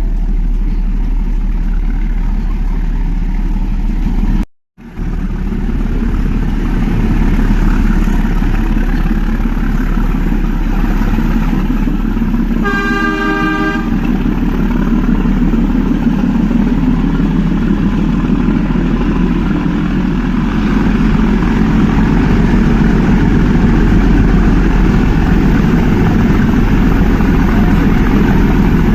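Toy train running, a steady rumble and clatter, with one horn blast lasting about a second roughly halfway through.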